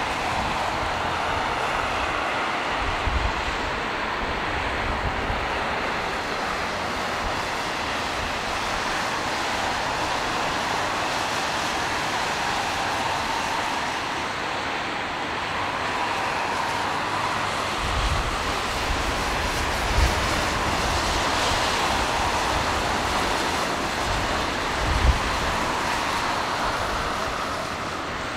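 Boeing 777-300ER's GE90 turbofan engines on final approach and landing, a steady rushing jet noise, with a few short low thumps.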